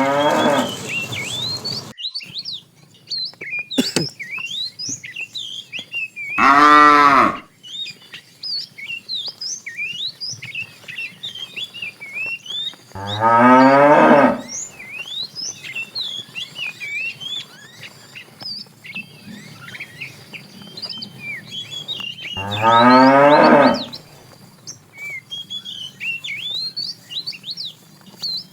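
Cows mooing: three loud, long moos several seconds apart, over a constant patter of high chirps.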